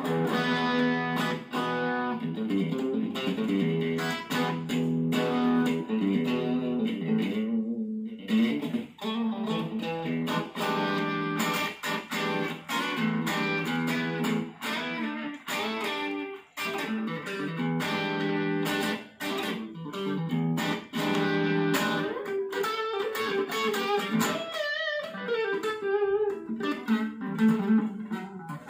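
Ibanez RG570 electric guitar played through an amplifier with overdrive: a lead line of quickly changing single notes, with a couple of brief pauses between phrases.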